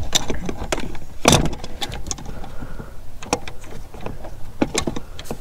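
Scattered clicks and knocks of hands and channel-lock pliers working a hose clamp and rubber coolant hose onto a plastic coolant reservoir, with one louder knock about a second in. A low steady rumble runs underneath.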